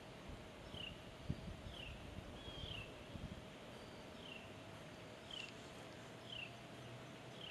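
A bird calling faintly, repeating a short, high, falling note about once a second, over a faint steady hum and a few low bumps.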